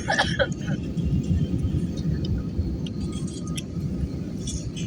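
Airliner cabin noise in flight: the steady low rumble of the jet's engines and the airflow around the fuselage during the climb, with a brief snatch of voices at the start.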